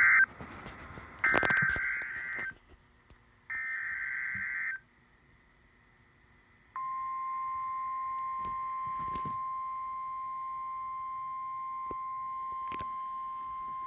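NOAA Weather Radio alert signal: three short bursts of screeching SAME digital data tones about a second apart, then a pause, then the steady single-pitch warning alarm tone starting about seven seconds in and holding, which marks a warning about to be read.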